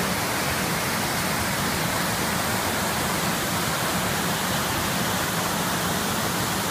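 Water pouring over a small weir and rushing down a rocky cascade, a loud, steady roar of white water.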